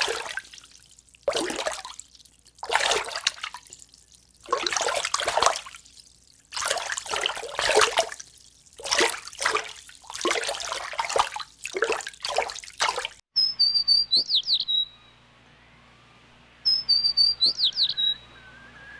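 Water splashing and sloshing in irregular bursts for about thirteen seconds. After a cut, a small songbird sings a short high trilling phrase twice, a few seconds apart.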